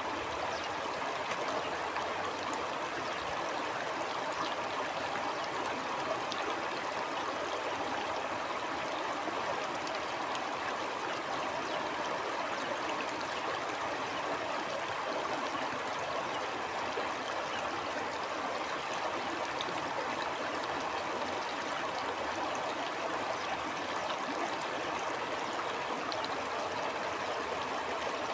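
Shallow stream flowing steadily, an even rushing babble with small trickling and gurgling detail.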